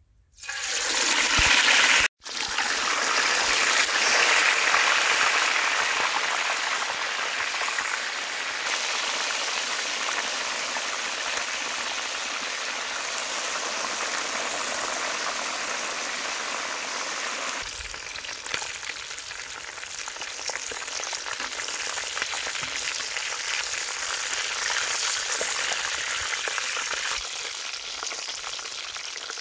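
Whole marinated quails dropped into hot soybean oil in a steel wok: the oil sizzles loudly at once, then settles into a steady deep-frying hiss and bubbling that eases slightly in the later part.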